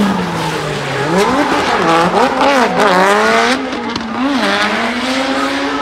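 Drift car engines revving hard, the pitch swinging up and down repeatedly as the throttle is worked mid-drift, over the hiss of tyres spinning on the track. Near the end the revs hold steady.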